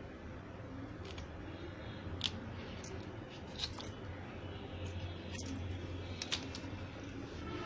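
Kitchen knife slicing the stem ends off firm raw green mangoes, a few short crisp cuts through the skin and hard flesh, over a steady low hum.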